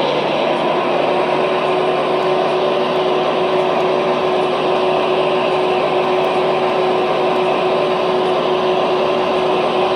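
O gauge model diesel locomotives running steadily, their electronic diesel engine sound holding one even pitch without revving up or down.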